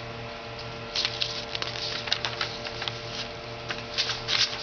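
Sheets of paper rustling and crackling as they are handled and turned over, starting about a second in, over a steady low hum.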